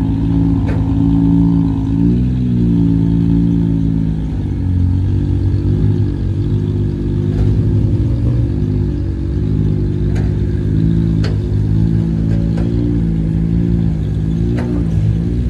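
Diesel engine of a loaded dump truck running under load on a rough haul road, its pitch wavering up and down, with a few light rattles and knocks.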